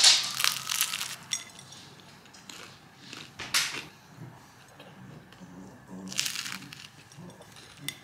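Crusty seeded baguette crust crunching as it is bitten and chewed: a burst of crunching at the start, then single crunches about three and a half and six seconds in.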